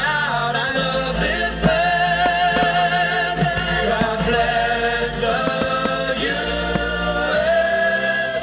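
Music with a choir singing long held notes, with sharp firework pops here and there through it.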